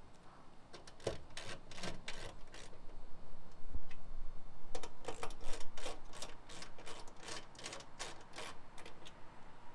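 A ratchet socket wrench clicking as it tightens the bolts holding a solar panel to the roof rack rail. There are two runs of quick clicks, one in the first few seconds and a longer one from about five seconds in.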